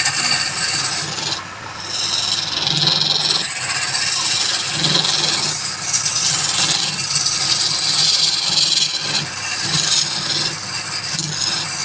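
Wood lathe running while a turning tool cuts the spinning wood, a steady scraping hiss that swells and eases with each pass over the motor's low hum.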